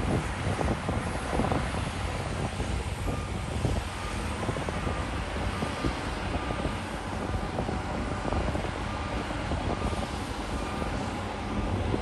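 Diesel engine of heavy earthmoving machinery running steadily.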